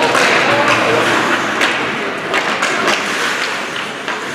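Ice hockey play: irregular sharp knocks of sticks and puck, about eight of them, over a steady hiss of skates on the ice.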